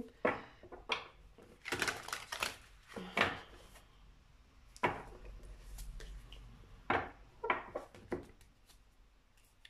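Scattered soft clicks and rustles of oracle cards being handled and drawn from the deck, a dozen or so irregular light taps over several seconds.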